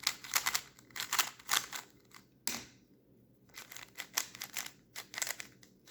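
Budget plastic 3x3 speed cube being turned by hand: quick runs of clicking as the layers snap round, a single sharper click about two and a half seconds in, a short lull, then more turning. This cube turns scratchy rather than smooth.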